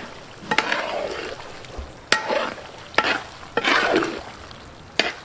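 Flat metal spatula scraping and clanking against a large steel pan as beef fry is stirred and turned, the meat sizzling in its masala. About five sharp clanks, roughly a second apart, each with a scrape after it.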